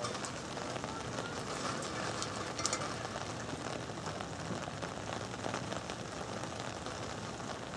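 Steady outdoor hiss, like rain or wind noise on the microphone, with a few faint ticks and a faint distant call about two and a half seconds in.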